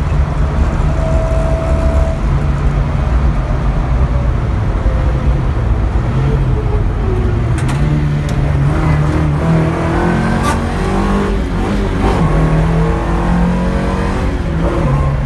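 Mk2 Ford Escort rally car's engine heard from inside the cabin while driving, the revs rising and dropping through the gears. A few sharp clicks come around the middle.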